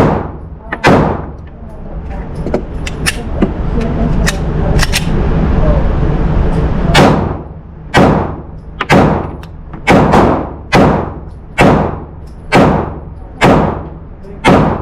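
Pistol shots at a firing range, each a sharp crack with a short echoing tail. Two shots come at the start, a few fainter shots follow, then a steady string of shots at about one a second from the middle onwards.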